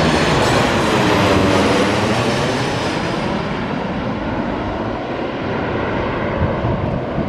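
Airliner on landing approach passing low overhead; its loud engine noise has a slow sweeping, phasing quality and fades gradually as the aircraft moves away.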